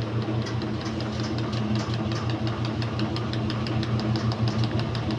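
Washing machine spinning fast: a steady hum with a regular knocking about five times a second.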